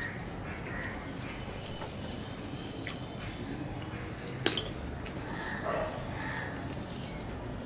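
Eating by hand from a steel plate: fingers mixing and squishing rice with fish curry, and chewing with lip smacks, marked by scattered sharp clicks, the loudest just past halfway.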